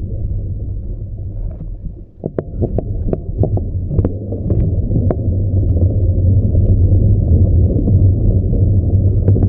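Muffled, steady low rumble of wind and road noise on a covered phone microphone while riding a bicycle downhill, with a cluster of sharp knocks from about two to five seconds in.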